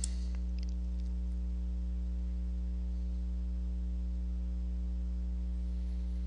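Steady deep electrical mains hum with its stack of overtones, picked up in the recording's microphone line, unchanging throughout; a faint mouse click right at the start.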